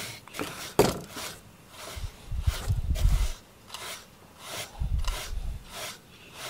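Slicker brush with fine, dense wire pins raking through a cat's fur in short, scratchy strokes, about three a second. A low rumble comes in twice, about two seconds and five seconds in.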